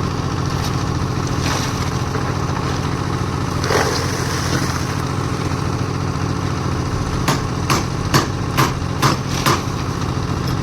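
Concrete mixer's engine running steadily. In the last few seconds a series of sharp knocks comes at about two a second over the engine.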